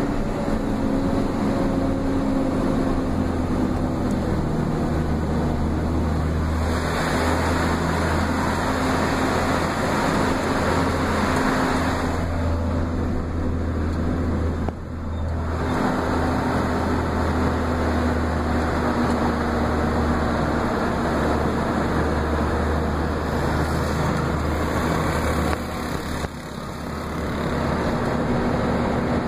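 Steady engine drone and road noise from inside a moving vehicle, with the rushing noise swelling and easing a few times.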